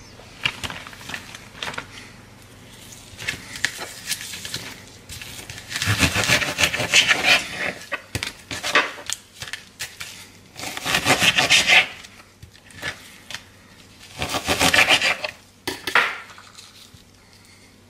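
Raw fish fillets being handled by hand on a plate and cutting board: rubbing and rustling in three louder bursts, with small knocks and clinks of the plate and board between them.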